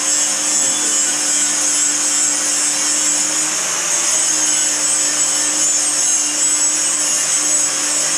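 A handheld electric power tool switched on and running steadily: a loud high hissing rush over a steady hum.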